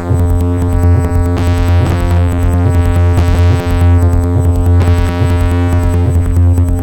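Live techno played on hardware synthesizers, samplers and a drum machine: a steady deep bass drone under held synth tones and fast ticking hi-hats, with a sweeping filter swell rising and falling about every second and a half.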